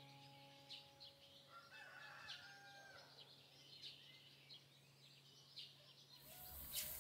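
A rooster crows once, faintly, from about one and a half to nearly three seconds in, with small birds chirping softly around it.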